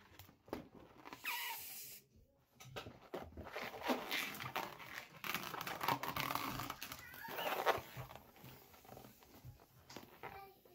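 Small inflated latex balloons being squeezed and rubbed in the hands, giving irregular rubbery squeaks and rubbing noises, with short sliding squeals, one about a second in and another about seven seconds in.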